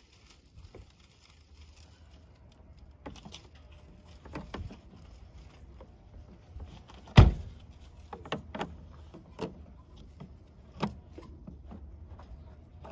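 Gloved hands handling the plastic air filter housing and intake tube of a Duramax diesel: scattered clicks and knocks, with one sharp knock about seven seconds in, over a low steady hum.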